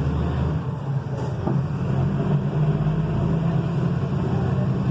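Volkswagen 17.210 truck's diesel engine running steadily, with a brief dip in level about a second in.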